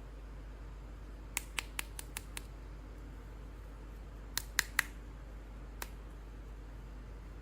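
Sharp little clicks from handling action-figure toys and their packaging: a quick run of six, then a close group of three and a single one, over a steady low hum.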